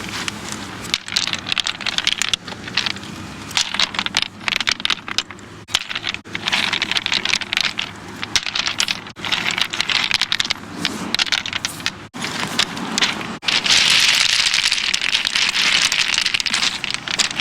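Rocks being moved, clattering and scraping against one another in a dense run of small knocks and grinding. The takes are cut together, with brief breaks about two-thirds through, after which the clatter becomes denser and steadier.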